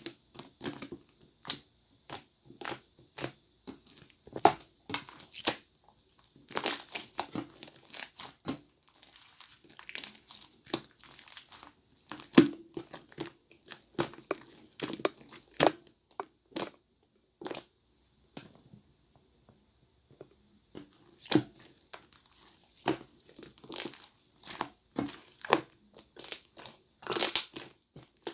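Cloud slime being squeezed, stretched and poked by hand, giving irregular sharp crackles and snaps several times a second, easing off for a couple of seconds past the middle.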